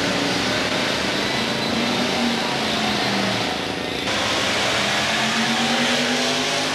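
Race car engines running and revving at a drag strip, the pitch wavering and climbing in a long rev about five seconds in. The sound changes abruptly about four seconds in.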